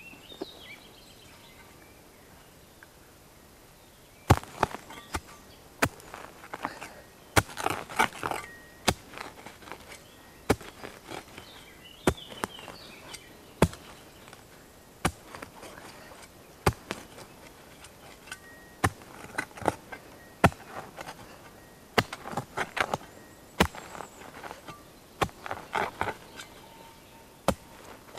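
A small wooden-handled spade chopping down into grassy soil again and again: sharp strikes roughly once a second, with scraping, rustling clusters as turf and earth are worked loose. It starts about four seconds in.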